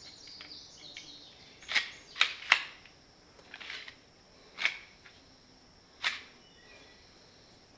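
Sharp clicks and clacks, about six of them a second or so apart, from the multitool's hedge trimmer attachment being handled and its adjustment worked.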